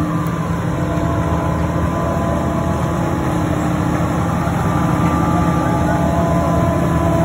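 Tractor-driven forage harvester chopping standing green maize for silage: engine and cutter running together in a loud, steady drone with a few steady hum tones.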